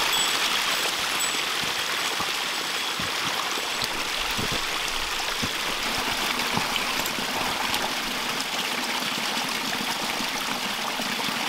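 Small spring trickling and splashing steadily down over rocks in a shallow mountain runnel.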